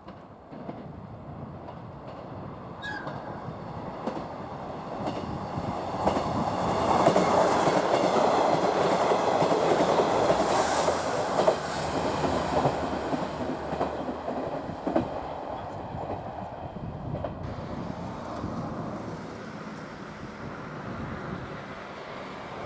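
KiHa 110 series diesel railcar passing over a level crossing: the rumble and clatter of its wheels over the rail joints build up, peak about seven to twelve seconds in, then fade as it moves away.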